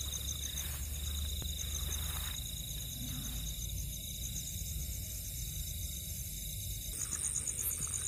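Night insects trilling steadily at several pitches, one with a fast pulsing trill, and a higher one joining about seven seconds in, over a low rumble.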